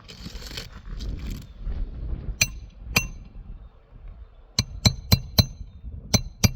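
Hammer striking a metal roof snake shingle-repair tool to drive a roofing nail under a shingle, each blow a sharp ringing metal clink. A short scrape comes first, then two blows, then a quicker run of six.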